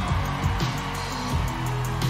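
Live pop band playing through a PA, carried by sustained bass notes under a drum beat.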